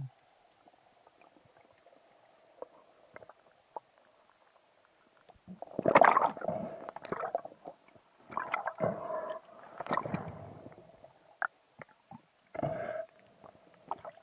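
Underwater, a band-powered speargun fires about six seconds in with a sharp, loud burst, followed by several bursts of rushing, gurgling water as the shaft and line are worked in. A faint steady hum runs underneath.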